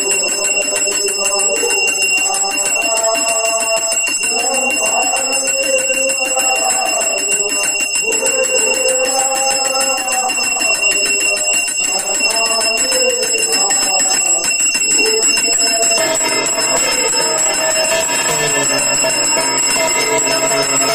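Brass temple hand bell rung without pause during an aarti, with a man chanting the aarti hymn over a microphone. About sixteen seconds in, the sound grows fuller and deeper.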